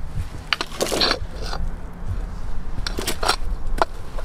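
Rocks clacking and scraping against each other as stones in a riprap pile are shifted by a gloved hand, with a handful of sharp knocks, bunched about a second in and again around three seconds in.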